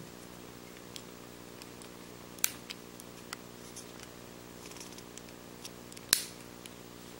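Small clicks of a Pentax Super-A's ASA/ISO film-speed dial being turned by hand through its detents, with two louder clicks about two and a half and six seconds in. A steady low hum runs underneath.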